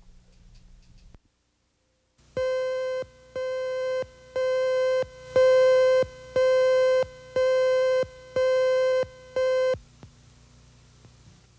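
An electronic beep tone sounded eight times, about one beep a second, each lasting about half a second, a steady mid-pitched tone, the first few getting louder. It runs under the station slate between news stories on an archived videotape, a cue or ID tone.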